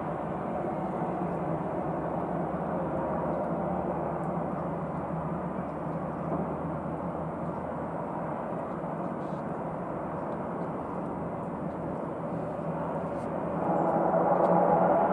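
Antonov An-28's two turboprop engines running as the aircraft rolls along the runway: a steady propeller drone with several held tones, which grows clearly louder and stronger in tone near the end.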